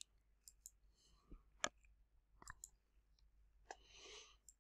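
Faint computer mouse clicks, about half a dozen spread out over the few seconds, with a soft breath about four seconds in.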